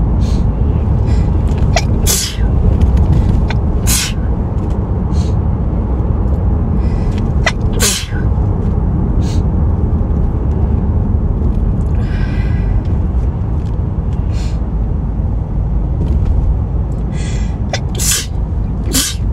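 A woman sneezing from hay fever: short, sharp sneezes scattered through, with several in quick succession near the end, over a steady low rumble.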